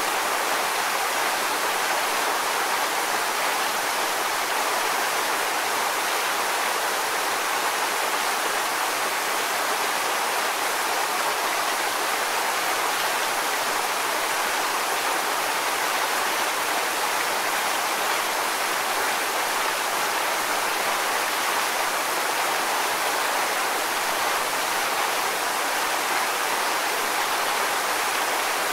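Waterfall: a steady, unbroken rush of falling water, more hiss than low rumble.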